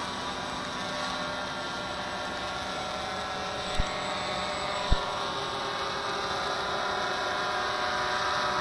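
Walkera QR X350 PRO quadcopter's four motors and carbon graphite propellers running steadily in flight, a dense even buzz of many tones. Two brief low knocks about four and five seconds in.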